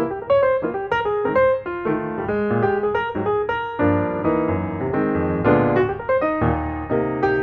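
Background music: piano or electric piano playing a melody with chords and a bass line.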